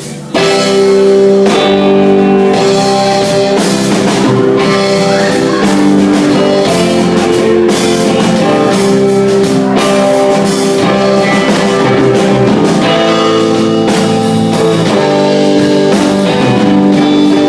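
Live band playing an instrumental break: electric guitar leads over a drum kit, the band coming in loud about half a second in.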